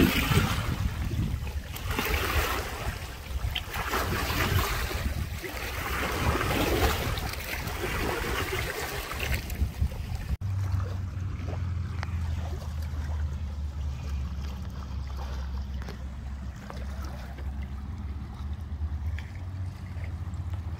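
Wind gusting on the microphone for about the first half, then, after an abrupt cut about halfway through, a steady low hum.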